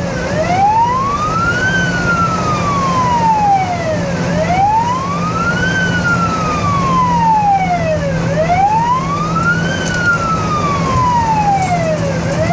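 Ambulance siren on a slow wail, rising quickly and falling more slowly, about once every four seconds. It is heard from inside a moving vehicle's cabin over a steady engine and road hum.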